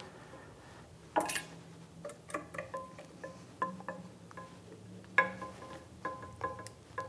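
Steel hand tools clinking against the metal parts of a lathe: about a dozen irregular sharp taps, each with a brief bell-like ring. The loudest come about a second in and about five seconds in, over a faint low hum.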